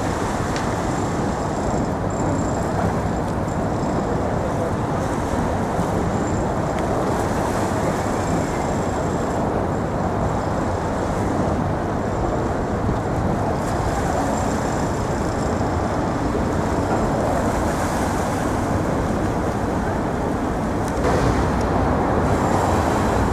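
Steady roar of city road traffic, a continuous wash of vehicle noise that gets a little louder near the end.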